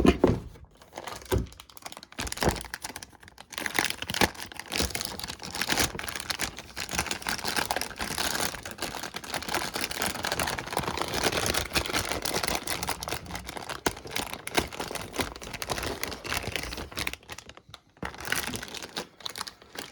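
Packaging crinkling and rustling as a graphics card is unwrapped and handled, with many small clicks and a sharp knock at the very start.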